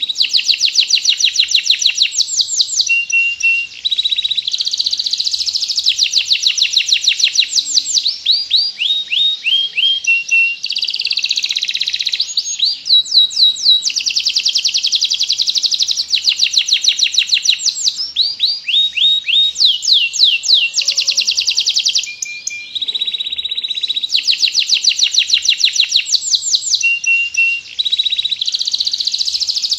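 Domestic canary singing continuously, a long song of rapid trills and quick sweeping notes pitched high, with only brief pauses between phrases.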